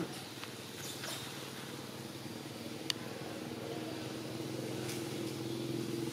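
Motor vehicle engine running in the background: a low, steady hum that grows louder toward the end, as if approaching. A single sharp click nearly three seconds in.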